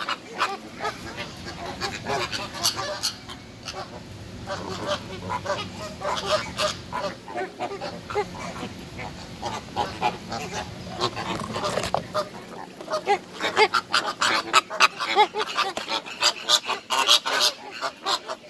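A flock of flamingos calling: many short honking calls overlapping in a constant chatter, busier and louder over the last few seconds.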